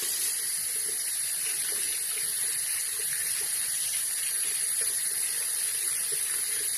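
Water running steadily from a tap into a sink while hands are scrubbed with soap under it, an even hiss.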